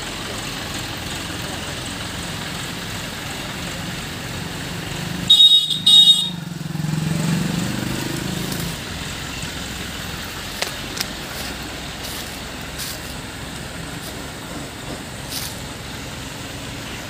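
ACE Rhino 110C pick-and-carry crane's diesel engine running as the crane travels with a heavy machine hanging from its hook. Two short horn blasts sound about five and six seconds in, followed by the engine revving up for about two seconds.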